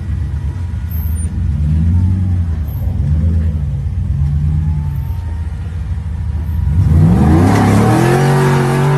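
Off-road vehicle engine given three short throttle blips, each rising and falling, then revved up hard about seven seconds in and held at high revs, with a loud rush of noise over the engine.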